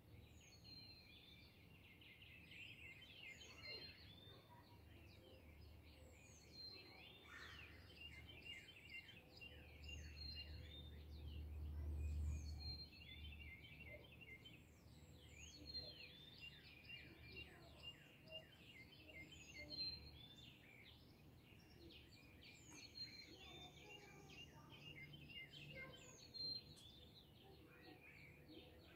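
Faint dawn chorus of many small birds chirping and trilling. A low rumble swells and fades about ten to thirteen seconds in.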